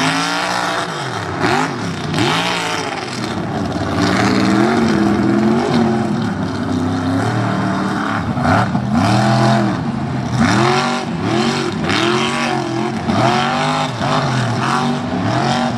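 Lifted mud truck's engine revving hard, its pitch rising and falling over and over as the throttle is worked through the jumps, with the revs coming about once a second in the second half.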